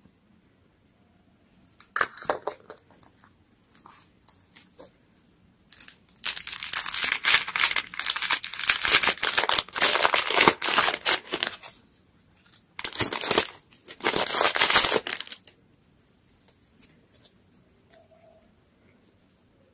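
A crinkly clear plastic packet being crumpled and torn open by hand, in loud crackling bursts, the longest lasting about six seconds, followed by a few faint small clicks.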